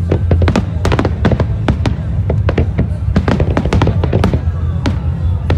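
Fireworks display: a rapid, dense run of aerial shell bursts and crackles, several sharp bangs a second, over a steady low rumble.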